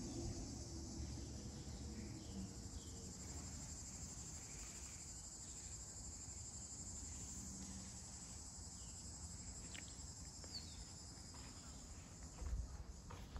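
Steady, high-pitched chorus of insects with a low background rumble, and a brief low bump near the end.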